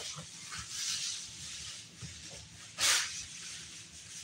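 American bully puppies shuffling about on plastic-backed puppy pads, making hissing rustles in short bursts, the loudest about three seconds in, with a few faint squeaks.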